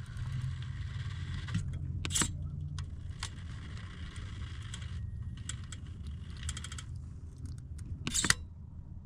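RC rock crawler's electric motor and geared drivetrain whining as it creeps up a rock face, with the tyres and chassis scraping and clicking on the stone. There are two sharp knocks, one about two seconds in and a louder one near the end.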